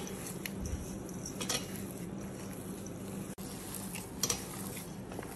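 Gloved hand kneading a moist mixture of shredded chicken, mashed lentils and egg in a stainless steel bowl: soft squelching, with a couple of louder squishes about one and a half and four seconds in, over a steady low hum.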